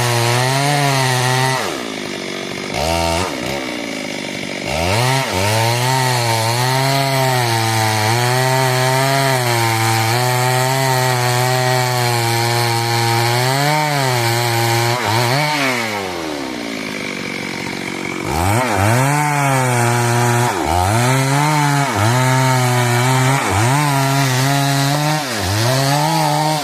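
Stihl chainsaw cutting wood at high revs, its engine note dipping and recovering again and again as the chain bites. It eases off twice, about two seconds in and again around fifteen seconds with a falling pitch, then picks up speed and cuts again.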